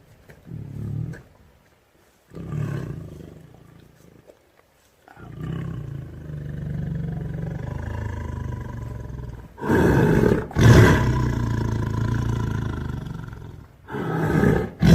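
Tiger making a low, rumbling, snoring-like growl ('ngorok') in a series of calls: a few short ones, then longer drawn-out rumbles, with the loudest call about ten seconds in.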